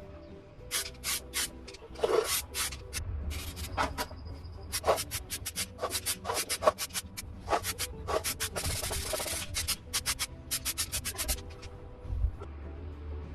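Sandpaper rubbed by hand over a part in quick back-and-forth strokes, coming in runs with short pauses and one longer stroke, then stopping near the end.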